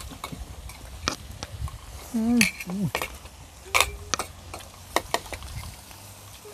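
Chopsticks and utensils clicking and tapping against bowls, plates and a grill pan in repeated sharp clicks. A short voiced sound with a wavering pitch comes about two seconds in.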